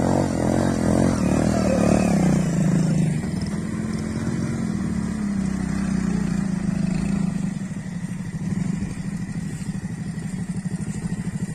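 Small motorcycle and scooter engines running hard up a muddy dirt track, the engine note rising and falling as the throttle opens and eases. About eight seconds in they settle to a lower, pulsing run.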